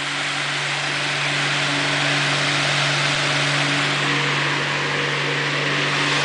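1901 General Electric 'pancake' electric fan running at speed: a steady low hum from its rebuilt motor under the even rush of air from its blades.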